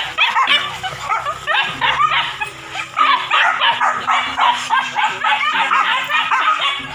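Several dogs barking and yelping at a wild boar, their high, excited barks coming fast and overlapping one another without a break.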